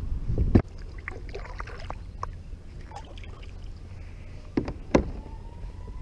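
Paddle being handled on a plastic sit-on-top kayak: several sharp knocks against the hull, the loudest about half a second in and again near the end.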